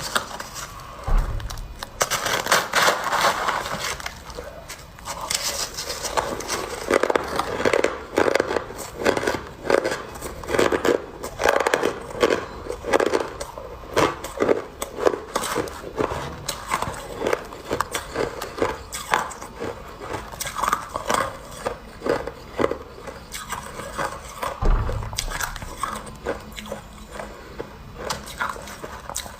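Shaved ice squeaking and crunching as a spoon scrapes into it and it is bitten, in a close-miked, irregular run of short crunches several times a second.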